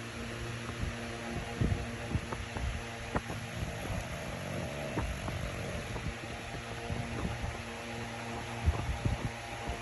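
Pug snoring over a steady hum, with scattered small clicks.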